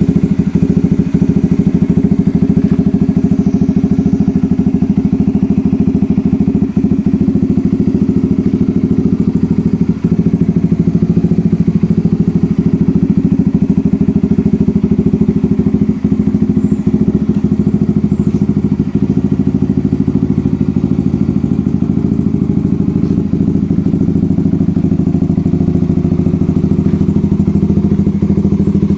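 Honda CBR150's single-cylinder four-stroke engine running steadily through an SC Project aftermarket exhaust, its exhaust pulses giving a deep, even beat.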